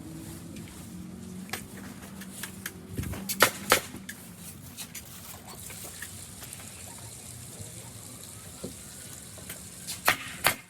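Fence-building work: two pairs of sharp knocks, one about three and a half seconds in and one near the end, over a steady low hum that gives way to a high hiss about halfway through.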